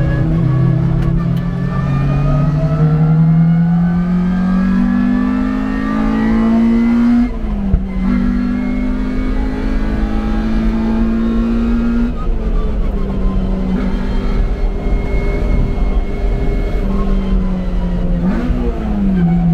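A motor running at changing speed, its pitch climbing over the first several seconds, dipping sharply and recovering about seven and a half seconds in, holding high and steady, then falling back about twelve seconds in, with a brief rise and fall near the end.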